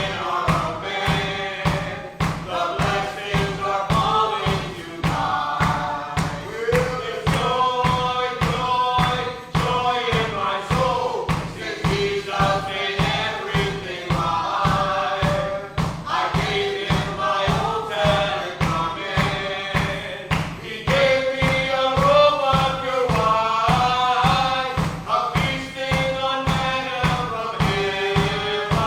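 Gospel song sung by a church choir and congregation, with drums and tambourine keeping a fast, steady beat of about four strokes a second.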